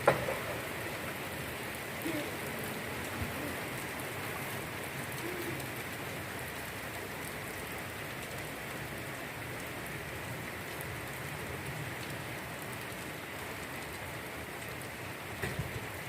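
Steady rain falling on surfaces, a continuous even hiss. A sharp click comes right at the start, and a few small taps come near the end.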